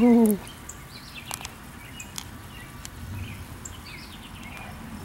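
Quiet outdoor background with faint, scattered bird chirps and a few light ticks, after a man's short loud 'Oh!' at the very start.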